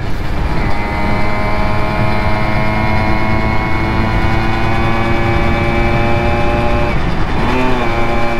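Simson moped's single-cylinder two-stroke engine running at a steady speed while riding. The pitch briefly dips and rises again about seven and a half seconds in.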